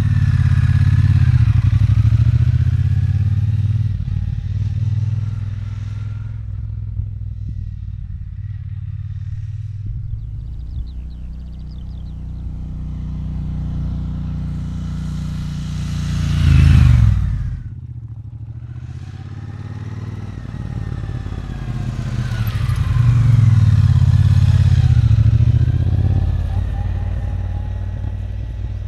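Triumph Bonneville T120's 1200cc parallel-twin engine running as the bike rides along the road, its note rising and falling with the throttle. About 17 seconds in it passes close by, loud, its pitch dropping sharply as it goes away.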